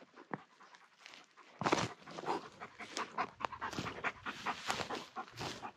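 Alaskan Malamute panting rapidly, starting about a second and a half in: the dog is hot and panting to cool down.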